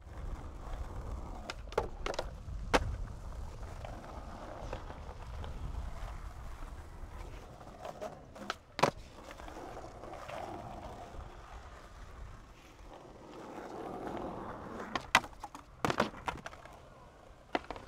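Skateboard wheels rolling over concrete paving with a steady low rumble, broken by several sharp clacks as the board is popped and lands during flip tricks.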